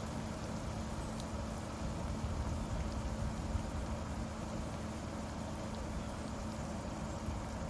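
Steady rain falling, an even hiss with a low rumble and a faint steady hum underneath.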